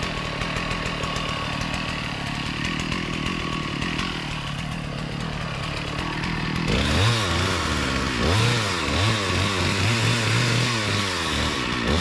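Chainsaw engine running steadily at low speed, then revved up and down about five times in the last third, each rev rising and falling in pitch.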